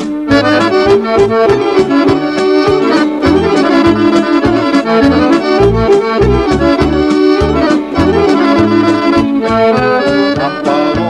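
Instrumental break of a Serbian folk song: an accordion plays a fast, ornamented melody over a steady bass beat from the band.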